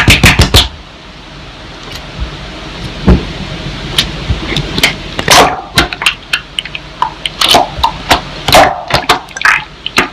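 Slime being squeezed and poked by hand: irregular wet squelches, clicks and little pops. A beat of music cuts off about half a second in.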